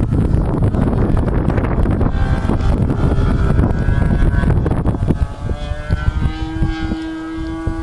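Wind buffeting the microphone, with a model aircraft's engine coming through as a steady droning tone from about two seconds in, clearer over the last few seconds as the wind eases.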